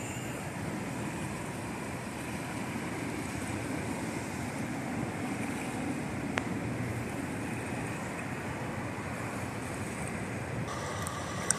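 Allegheny River floodwater lapping and washing across a submerged road: a steady rushing wash, with one sharp click about halfway through. The background changes abruptly near the end.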